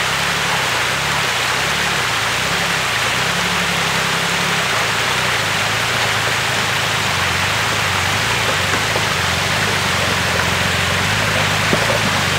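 Water running steadily over the rocks of a creek-bed track, with the engine of a Nissan Patrol 4x4 running at low revs as it crawls down over the stones. A single knock sounds near the end.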